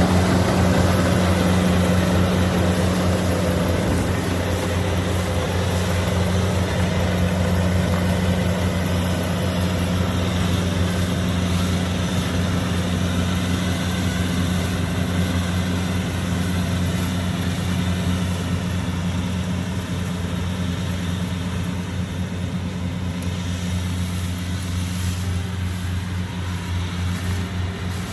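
Diesel engine of a Kubota DC70 combine harvester running steadily at constant speed: a deep, even hum with a fast regular pulse.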